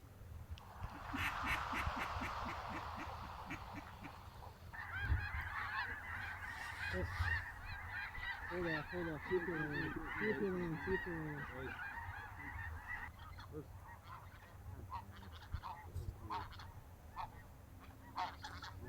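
A flock of geese calling: a dense, overlapping chatter of high calls from about five seconds in until about thirteen seconds, with a run of lower honks mixed in partway through.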